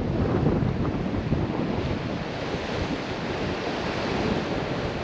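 Waves washing on the shore with strong wind buffeting the microphone, a steady rushing noise heaviest in the low end.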